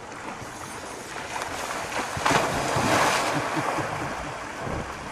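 Coastal brown bear lunging into a river after fish: a loud surge of splashing, churning water about two seconds in that eases off over a second or so, over a steady rush of water.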